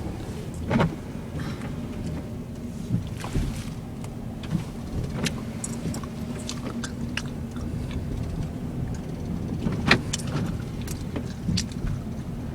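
Inside a moving car: steady engine and road rumble with a faint even hum, scattered light clicks, and two louder knocks, about a second in and near the end.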